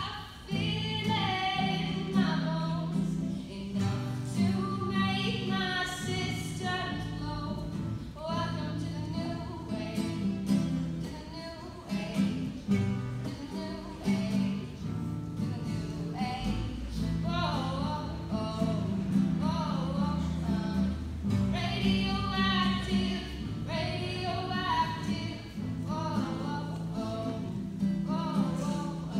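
A teenage girl singing a song, accompanying herself on a strummed acoustic guitar.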